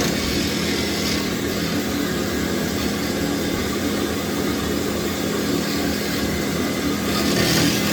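Commercial vacuum cleaner running steadily on a tile floor: a constant motor hum under a dense suction hiss. The hiss brightens briefly in the first second and again near the end.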